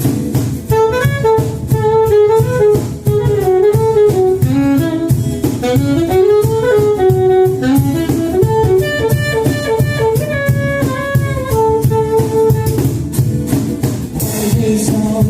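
A band's instrumental break: a lead melody line moving up and down over a steady drum beat and bass, with no vocals.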